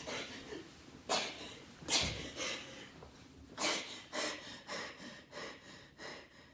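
A person breathing in a string of short, noisy, heavy breaths that come faster from about halfway through.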